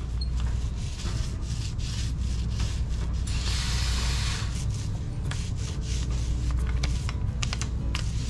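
Paint roller rolling resin over a foam bearing block: a rough, sticky rubbing with scattered small clicks and a louder rasping stretch about three and a half seconds in, over a steady low hum.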